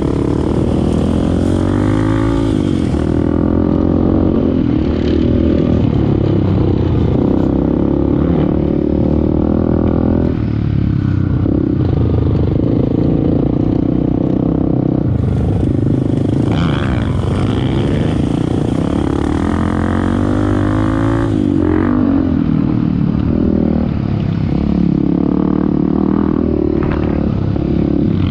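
Off-road motorcycle engine running under load, its pitch rising and falling again and again as the throttle is opened and eased, with some clatter.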